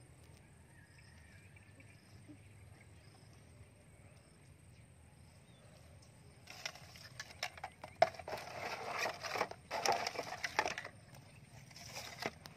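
Empty plastic drink bottles clattering and crinkling against each other and a plastic basin as they are handled and shifted around. A dense run of clicks and knocks starts about halfway through and lasts about four seconds, with a few more near the end.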